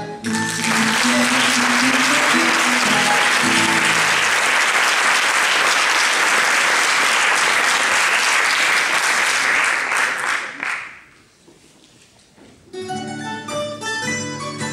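Audience applauding for about ten seconds and then dying away, with the last notes of the music ringing underneath for the first few seconds. After a brief lull, plucked-string music starts up near the end.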